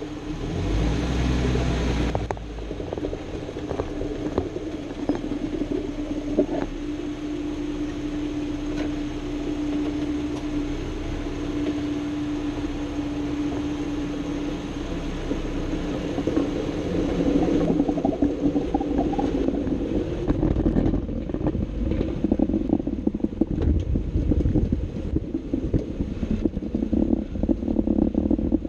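Underside of a Jeep Wrangler JK while driving: drivetrain and road rumble with a steady hum for the first half, turning rougher and louder after about twenty seconds. The noise is that of a JK with a grinding noise coming from underneath.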